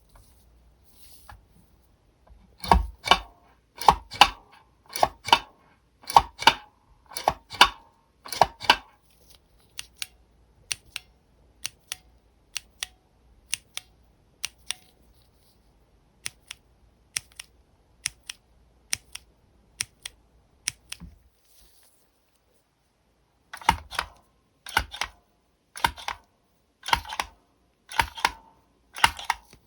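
A giant Kailh Burnt Orange Big Switch with its keycap is pressed six times, each a loud clack on press and release. Then a regular-size switch is pressed about twenty times in quicker, fainter clicks. After a short pause, a bare giant Kailh Dark Yellow Big Switch is pressed six times.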